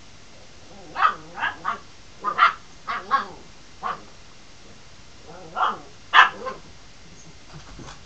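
Puppy barking: a quick run of short barks, then two or three more a little later.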